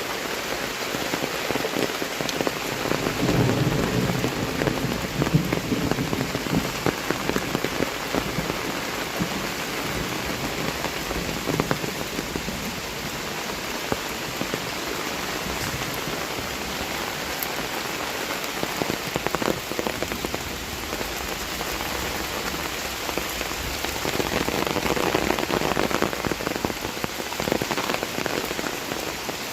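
Heavy rain falling steadily, with a low rumble of thunder swelling a few seconds in and a smaller swell near the end.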